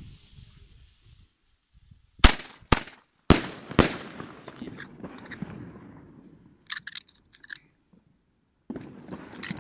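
Aerial firework shots: a launch hiss fades, then four loud bangs about half a second apart, each with a rolling echo, as the shots burst overhead. A few faint crackles follow, and a brief rushing noise starts near the end.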